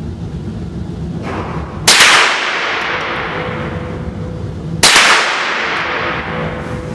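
Two shots from a Marlin 795 semi-automatic .22 LR rifle, about three seconds apart, each a sharp crack with a long fading tail, with a fainter shot just before the first. Wind rumbles on the microphone throughout.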